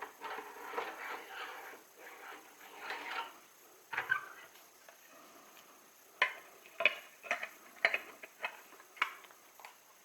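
Small hard objects being handled: a few seconds of rubbing and rattling, then a run of sharp clicks and knocks.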